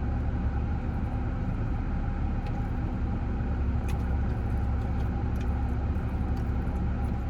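Car engine running, heard from inside the cabin as a steady low rumble, with a few faint clicks.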